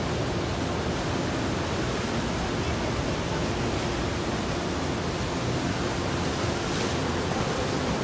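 Ocean surf: waves breaking and white water foaming over the shallows, a steady rushing noise without separate crashes.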